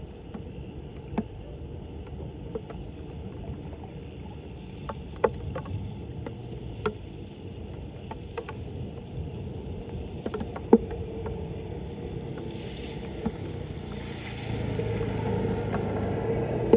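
Floodwater sloshing and running, a steady wash, with scattered sharp knocks and clicks; it grows louder near the end.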